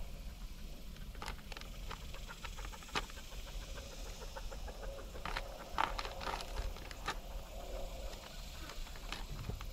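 Dry shelled corn rattling and clicking against a metal game feeder as it is poured in: irregular clicks, thickest about a second in and again around the middle.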